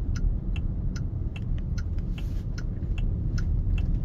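Turn-signal indicator ticking steadily, about two to three clicks a second, signalling a left turn, over low road and tyre rumble inside a NIO electric SUV's cabin.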